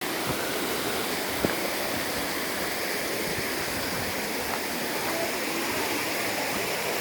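Running water rushing steadily, with a few faint clicks.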